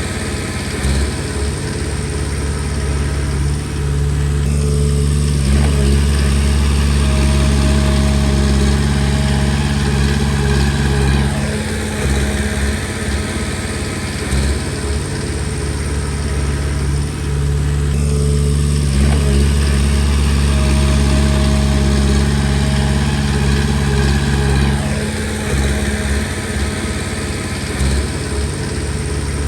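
Komatsu D20P bulldozer's diesel engine working steadily; twice its note rises and holds for about six seconds, then drops back, in the repeated load cycles of pushing stone.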